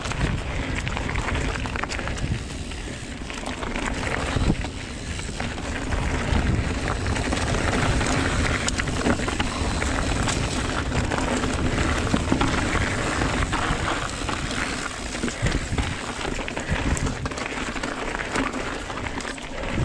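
Giant Trance X mountain bike ridden along a dirt singletrack: tyres crunching and rolling over dirt, with many sharp clicks and knocks from the bike rattling over bumps, and a low rumble. It gets louder through the middle.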